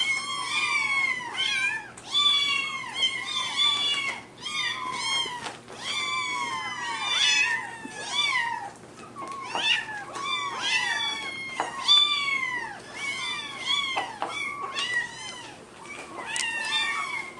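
Kittens meowing, high-pitched meows coming one after another, most falling in pitch.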